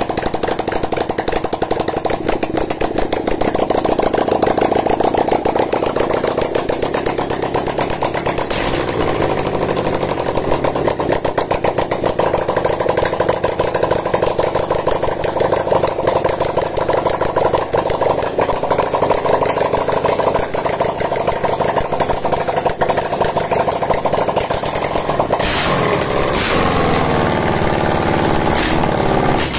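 A 400 cc V-twin built from Honda Tiger engine parts, fed by a single carburettor, runs on its first test start. It carries on steadily, and its pitch shifts briefly near the end as it is blipped. The carburettor is not yet tuned.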